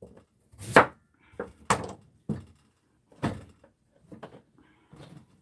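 Kitchen knife slicing through a Korean radish (mu) and knocking down onto a wooden cutting board: a few irregular thunks, three solid ones and several lighter knocks.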